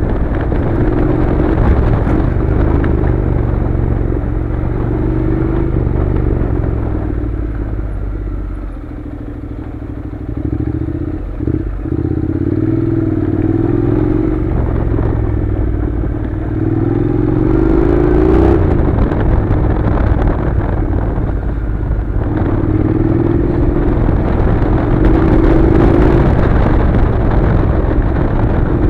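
Honda NC700's 670 cc parallel-twin engine running as the motorcycle rides a gravel track, its note rising and falling with the throttle. It eases off about eight seconds in and picks up again, with a few sharp knocks and clatter from the rough surface.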